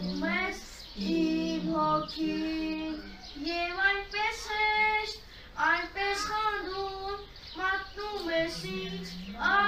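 A young boy singing solo and unaccompanied, holding long notes and gliding between pitches in phrases with short breaths between them.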